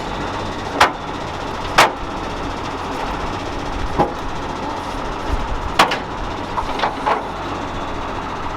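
Six sharp metal bangs at uneven intervals, like something struck hard on a car body, over a steady background of running engines.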